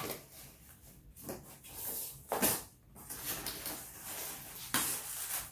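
Cardboard sliding and scraping against the fabric of a plate carrier as a cut-out cardboard plate is pushed into its pouch: a run of short rustling scrapes, the loudest about two and a half seconds in.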